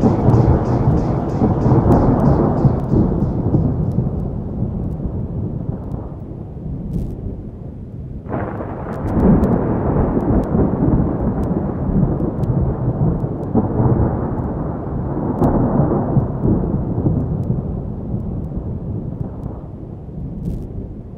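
Thunderstorm sound effect: a continuous rumble of rolling thunder and rain, with a fresh peal breaking in sharply about eight seconds in and more swells a few seconds later. A few faint sharp clicks sound over it.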